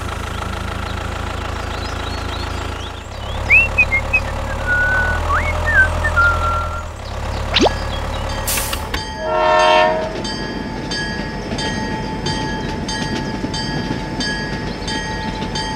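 A steady low rumble, then a train horn blown once, about nine and a half seconds in, followed by a train running with a regular clatter.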